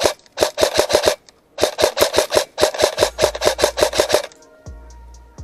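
AK-style airsoft rifle firing rapid strings of shots: a short string, a brief pause, then a longer string of about two and a half seconds that stops about four seconds in.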